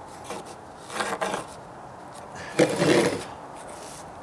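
Two short scrapes on OSB deck sheathing, about a second in and a little past halfway, as a metal spirit level is slid off the board and a line is marked on it.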